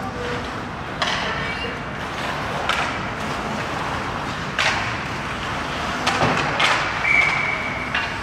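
Ice hockey play: skate blades scraping the ice and several sharp cracks of sticks and pucks against the ice and boards. About seven seconds in, a short steady whistle blast from a referee's whistle, stopping play.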